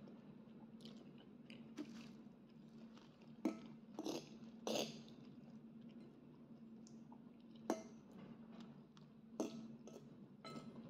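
Faint chewing of a person eating kare-kare, broken by about six short sharp clicks of a metal fork against the bowl.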